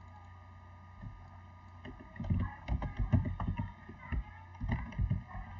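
Computer keyboard keystrokes typing a file name: quick runs of taps starting about two seconds in, a brief pause, then more near the end, over a steady low electrical hum.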